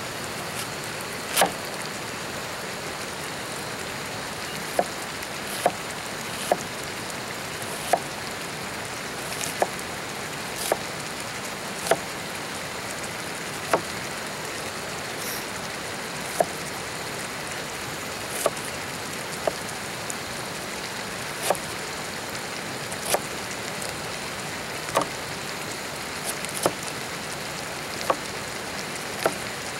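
Knife blade tapping on a plastic cutting board while an onion is cut, short sharp taps at an irregular pace of roughly one every second or two, over a steady hiss.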